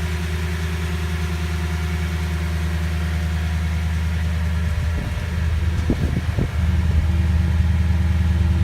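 2012 Toyota Tundra's 5.7-litre V8 idling steadily through its exhaust, with a few short bumps in the sound a little past the middle.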